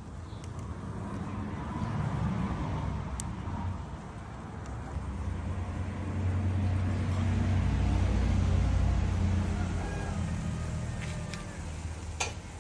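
A passing motor vehicle's engine rumble swells and fades twice, louder the second time, over a faint hiss. There are a few light ticks and one sharper click near the end.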